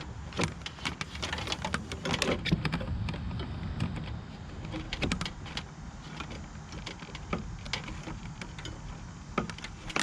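Irregular light clicks, ticks and small knocks of hands working electrical wires and small fittings inside an RV rooftop air conditioner, over a steady low rumble.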